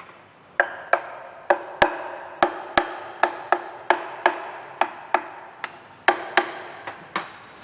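Repeated sharp hammer taps, about two to three a second at a slightly uneven pace, each strike giving a short ringing tone.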